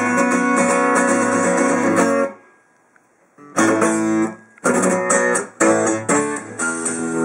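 Early-1970s Japanese-made Sigma DR-7 dreadnought acoustic guitar being played in chords. The playing stops for about a second a little over two seconds in, then picks up again, broken by a couple of short pauses.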